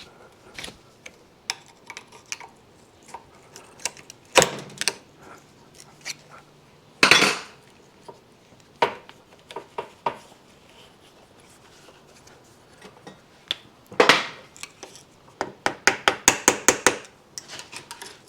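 Metal-on-metal clinks and knocks of hand tools on a motorcycle front fork, with a short scrape about seven seconds in and a quick run of light taps near the end, working at a ring stuck on the fork.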